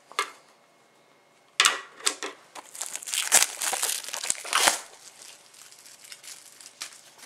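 Plastic shrink-wrap on a CD package being torn open and crumpled: crackling and tearing for about three seconds starting a second and a half in, then quieter rustling as it is handled.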